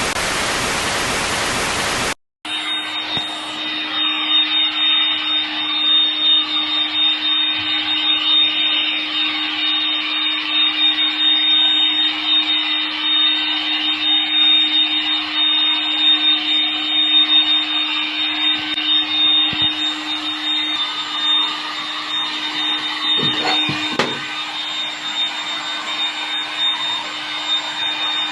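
A machine's motor running steadily with a constant high whine and a low hum over a noisy rush, after about two seconds of loud even hiss that cuts off abruptly.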